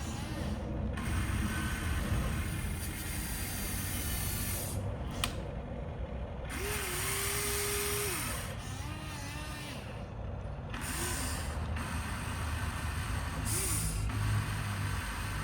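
Electric motors and gearboxes of a toy RC construction vehicle whirring with a mechanical rattle. Several short motor whines spin up and wind down, the longest lasting about a second and a half a little before the middle.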